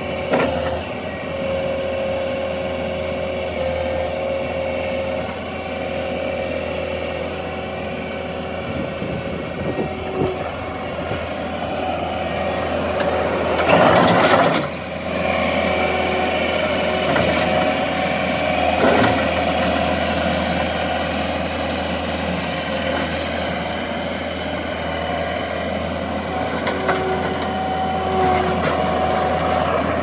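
John Deere 317 skid steer loader's diesel engine running steadily while the machine works its bucket and drives across gravel. A louder rush of noise comes about halfway through, and a shorter one a few seconds later.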